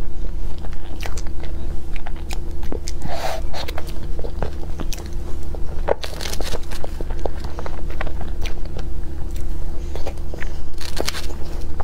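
Close-miked eating of strawberry crepe cake and whipped cream: a string of wet mouth clicks and smacks while chewing, over a steady low hum.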